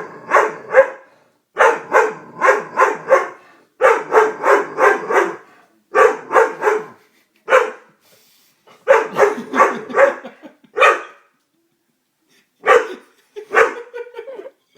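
Doberman barking hard in rapid runs of three to five barks, with short pauses between runs and a longer pause about eleven seconds in.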